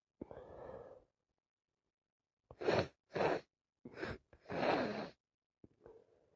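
A woman with a heavy head cold takes a gasping breath in, then sneezes four times in quick succession, with wet, forceful sneezes. A few faint breaths follow near the end.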